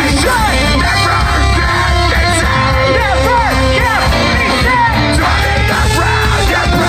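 A metalcore band playing live: distorted electric guitars, bass and drums, with a vocalist screaming into a microphone, loud and continuous, as picked up by a phone's microphone.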